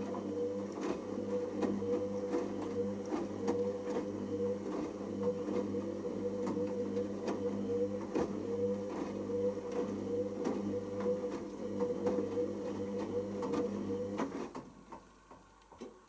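Hoover Optima OPH714D washing machine tumbling its drum in the main wash: the drum motor runs with a steady hum and a wavering whine, while water and the wet load splash inside the drum. The motor stops about 14 seconds in, ending the tumble, and a few faint splashes follow.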